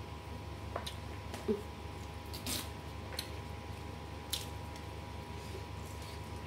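Fingers handling food: a few sharp crackles and soft squishy sounds as fried salted fish is torn apart and rice is picked from a stone mortar, over a steady low hum.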